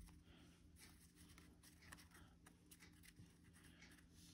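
Near silence, with faint soft slides and light ticks of football trading cards being flipped through by hand in a stack, over a low steady hum.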